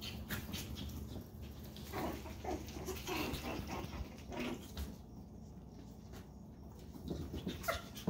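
Chihuahua puppies playing: small growls and yips, with scattered light clicks and scuffles.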